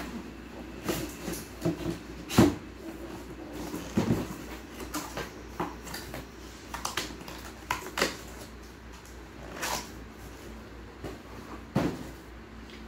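Cardboard boxes being handled and opened: scattered knocks, taps and scrapes of card as box flaps are pulled open and boxes are moved and set down, the loudest knock about two and a half seconds in.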